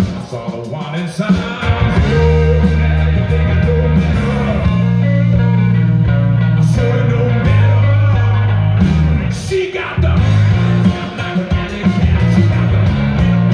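Live rock band playing: a male singer over hollow-body electric guitar, bass guitar and drums.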